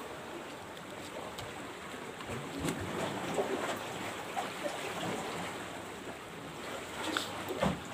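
Steady wash of sea waves along a rocky shore, with a couple of faint clicks near the end.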